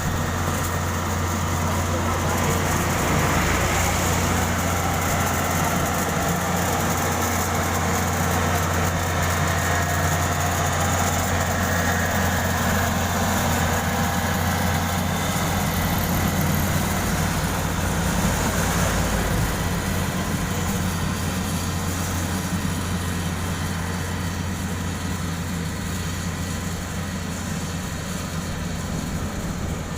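Diesel engine of heavy road-construction machinery running steadily, a constant low drone without revving or breaks.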